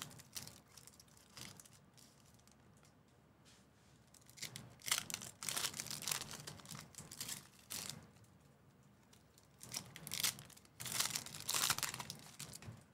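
Foil wrapper of a Panini Prizm basketball card pack crinkling and tearing as it is ripped open by hand. The crackling comes in two spells, one about halfway through and one near the end, with a quieter gap early on.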